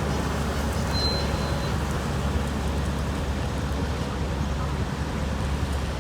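Diesel engines of road-paving machinery running steadily with a low rumble, and a short high whistle-like tone about a second in.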